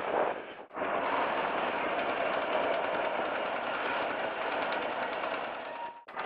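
Historic electric tram running, a steady mechanical rumble and rattle, with the sound cutting out briefly just under a second in and again near the end.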